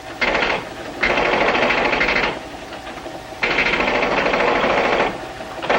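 Machine-gun fire in rapid rattling bursts: a short burst, then two longer bursts of more than a second each, and another starting near the end.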